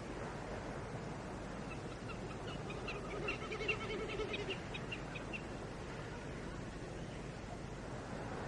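An animal calling: a run of quick repeated notes lasting about three seconds, over steady outdoor wind and field noise.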